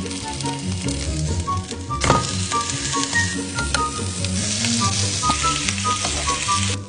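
Steak sizzling in hot oil in a frying pan, the sizzle growing louder in the second half as butter melts and foams and is spooned over the meat, then dropping away just before the end. A sharp knock about two seconds in.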